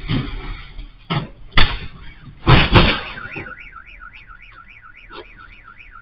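Car crash: a run of loud, sharp crashing impacts in the first three seconds, then a car alarm starts up, a tone warbling quickly up and down.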